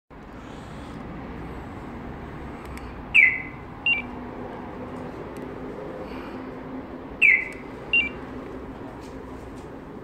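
Magicar remote-start alarm system chirping in response to the remote: twice, a loud short chirp that falls in pitch, followed a moment later by a short beep.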